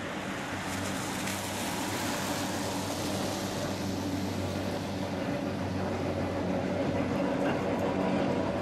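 Vintage electric tram running past on street track, a steady low hum, with the hiss of car tyres on the wet road in the first few seconds. The hum grows gradually louder toward the end.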